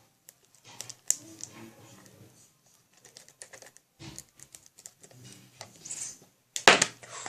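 Irregular light clicks and taps from close-up handling, with a louder brief rustling thump just before the end.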